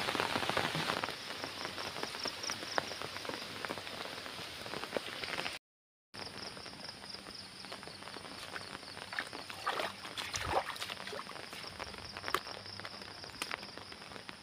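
Rain falling steadily, an even hiss with scattered drop ticks. The sound cuts out completely for about half a second around six seconds in, then returns fainter with sharper, sparser ticks.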